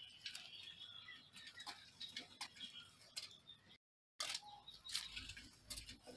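Mice squeaking faintly in high chirps while scrabbling over a wire fan guard and loose grain, with many small clicks and rustles. The sound drops out completely for a moment about four seconds in.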